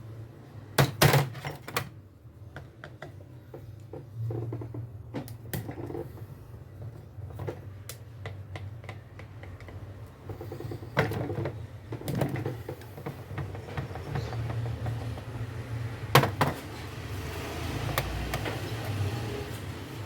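Scattered metal clicks and knocks of hand tools and parts as a removed car starter motor is taken apart on the bench. The loudest are a quick cluster about a second in and a sharp knock near sixteen seconds, over a steady low hum.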